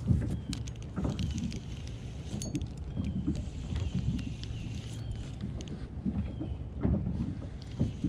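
Low, uneven rumble of wind and water noise on the microphone of a plastic fishing kayak, with scattered light clicks and knocks as a spinning reel and its line are handled.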